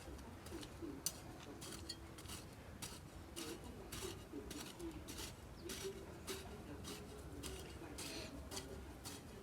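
Faint, low, wavering cooing calls, like a dove's, repeating through, with scattered light clicks and ticks.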